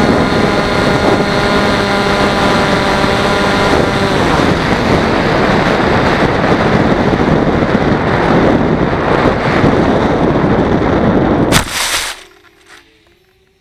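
Onboard sound of a Teksumo flying wing: the electric motor and propeller whine steadily over heavy wind rush on the camera, and the motor cuts about four seconds in. Wind noise alone carries on as the wing glides, until a sudden jolt near the end, after which the noise dies away quickly, as at touchdown.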